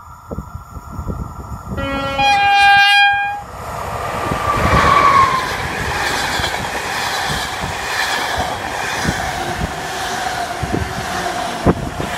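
An EP09 electric locomotive sounds its horn in one long blast of about a second and a half, starting about two seconds in: the Rp1 'attention' warning signal. Then the locomotive and its passenger coaches pass at speed with a loud steady rumble and a run of wheel clicks.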